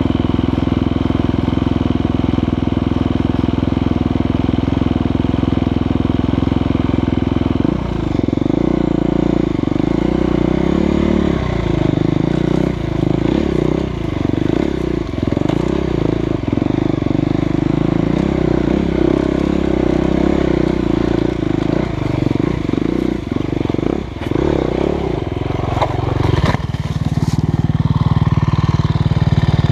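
Husqvarna FE350 single-cylinder four-stroke dirt bike engine idling steadily, then revving up and down under load from about eight seconds in. Around twenty-six seconds in there is a short clatter as the bike goes down on its side, and an engine keeps running steadily after it.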